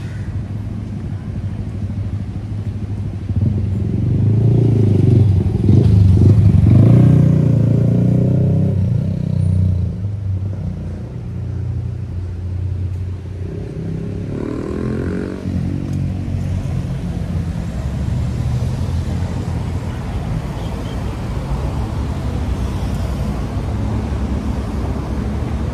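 Steady urban road traffic, cars and motorcycles passing close. A vehicle engine accelerates past about four to nine seconds in, its pitch rising, and this is the loudest part. Another vehicle passes about fifteen seconds in.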